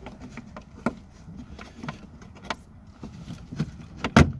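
Plastic A-pillar trim panel being pulled and worked loose from its retaining clips: scattered clicks and small plastic rattles, with a loud snap near the end.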